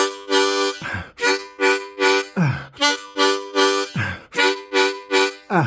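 Seydel diatonic harmonica in C playing a rhythmic chugging chord riff, about three pulses a second, with a bent note swooping down in pitch roughly every one and a half seconds.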